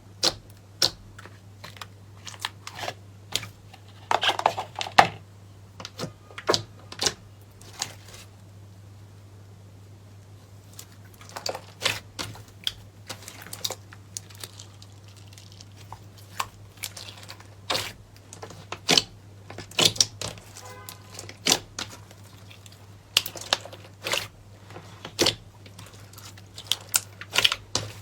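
Slime being pressed and stretched by hand, giving off irregular sharp pops and crackling clicks, with a quieter pause about a third of the way in and a faint steady low hum underneath.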